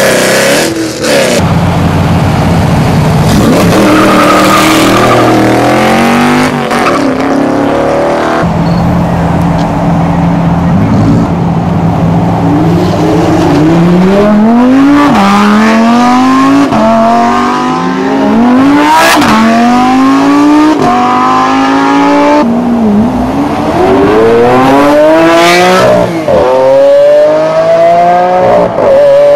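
Supercars, Lamborghinis among them, accelerating hard away one after another. The engines rev up through the gears, each climb in pitch dropping back sharply at the upshift. For the first several seconds there is a steadier, lower engine rumble.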